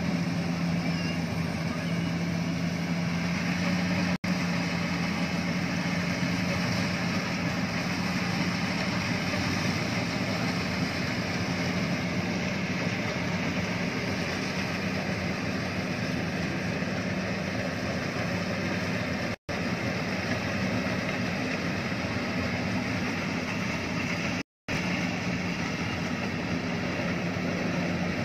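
Iseki HC80 rice combine harvester's engine running steadily as it harvests, a constant drone with a low hum. The sound drops out to silence for an instant three times.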